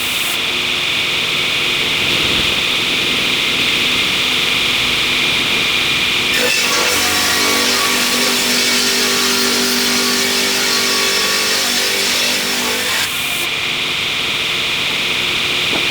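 Sawmill machinery running steadily with an engine-like drone and a strong high hiss. The high part of the sound changes abruptly about six seconds in and again about thirteen seconds in.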